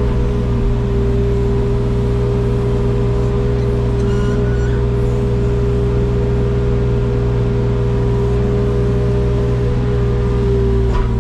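Wacker Neuson mini excavator's diesel engine running at a steady speed, with a brief faint higher whine about four seconds in.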